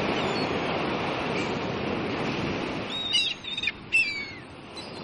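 Steady rush of wind and water for about three seconds, then several short bird calls, one sliding downward about four seconds in.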